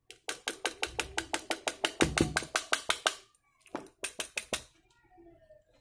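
A fast, even run of sharp taps, about eight a second for roughly three seconds, then a shorter run of about six taps after a brief pause.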